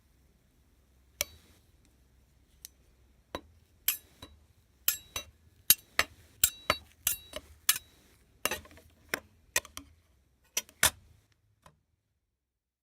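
Irregular sharp clinks and taps of hard objects, a few spaced apart at first and then coming quicker, some with a brief glassy ring, stopping near the end.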